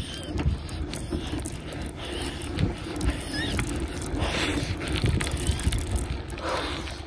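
Bicycle rolling over rough, cracked asphalt: a steady low tyre rumble with scattered rattles and knocks, and wind rushing over the phone microphone.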